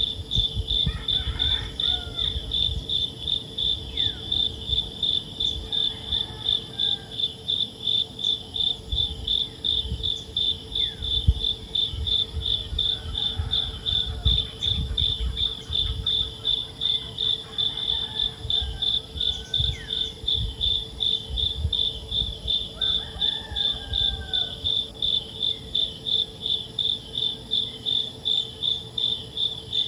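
A cricket chirping in a steady, fast rhythm of high pulses, about two a second, over a constant low hum and an uneven low rumble, with a few faint bird chirps.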